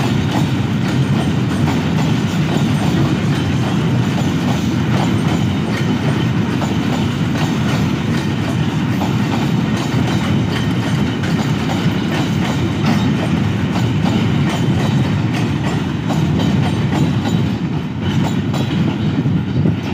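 Empty open-top freight wagons of a goods train rolling past, their wheels clicking over the rail joints in a steady, unbroken rumble.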